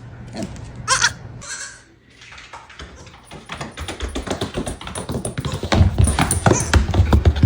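A farm animal gives one short bleating call. Then comes a rapid, irregular run of taps and knocks that grows louder, with heavy low thumps toward the end.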